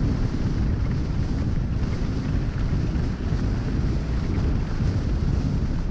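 Wind buffeting the camera microphone over a mountain bike's tyres rumbling on loose gravel, a steady noise at descending speed.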